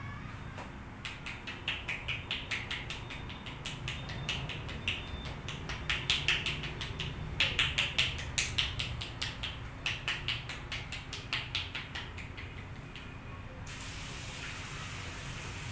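Rapid rhythmic tapping, about three or four sharp taps a second, in runs with short pauses. Near the end the tapping stops and a steady spray hiss begins.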